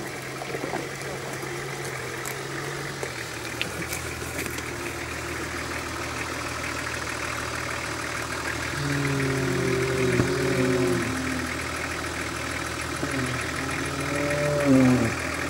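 Nissan Patrol engine running at low revs off-road. It gets louder and higher for a couple of seconds about nine seconds in, and again briefly near the end.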